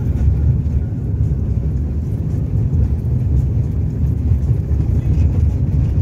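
A vehicle running and moving along: a steady, dense low rumble that goes on throughout, with small uneven fluctuations in loudness.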